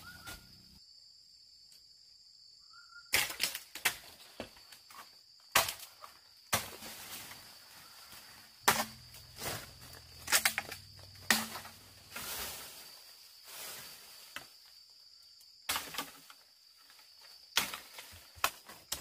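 Irregular sharp knocks and rustling, a second or more apart and bunched in places, over a steady high insect buzz.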